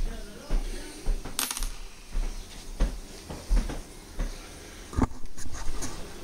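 Small steel fish hook clinking onto a hard tabletop about a second and a half in, a bright metallic click with a brief ring. Several dull knocks and handling bumps against the table follow.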